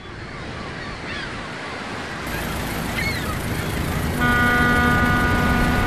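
A rush of noise that grows steadily louder, with a few short high calls over it, then a ship's horn sounds about four seconds in and holds on one steady note.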